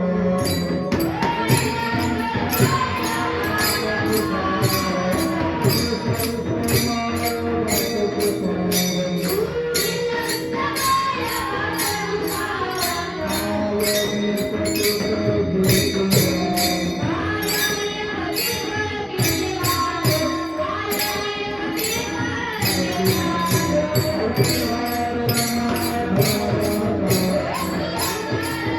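Marathi devotional kirtan music: small hand cymbals (taal) struck in a steady rhythm over mridang drumming and a sung, melodic line.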